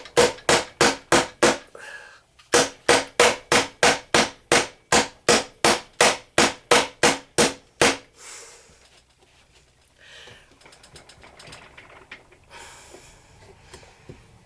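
A small hammer striking a hard, dried-out treasure-dig block, in steady sharp blows about three a second. The blows pause briefly once and stop a little past halfway, followed by fainter scraping and crumbling of the block.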